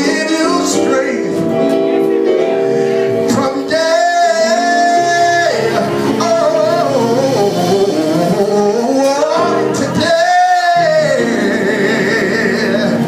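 Live gospel praise-and-worship singing: a lead voice holding long notes and sliding through runs over sustained instrumental accompaniment.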